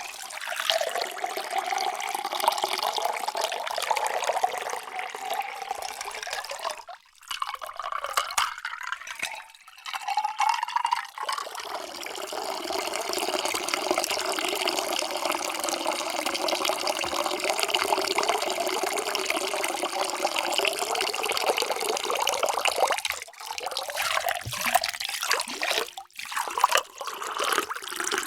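Water pouring in a steady stream into a container, with a ringing tone from the vessel. The pour stops briefly and starts again several times.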